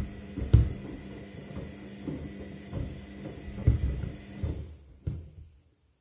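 Front-loading washing machine tumbling shoes in its wash cycle: the drum motor hums while heavy wet shoes thud against the drum every second or so, then the motor stops about five and a half seconds in as the drum pauses.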